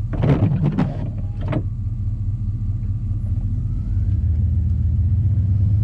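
Engine and road rumble of an old Chevy pickup driving in snow, heard from inside the cab; it grows louder about four seconds in. A brief rustling noise comes in the first second and a half.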